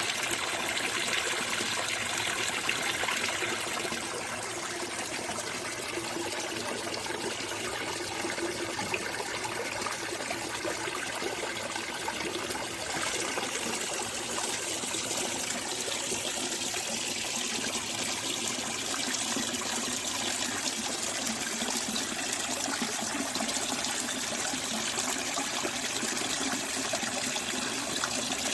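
Water at a lake trickling and splashing in a steady, dense wash of noise, with slight shifts in texture about four seconds and thirteen seconds in.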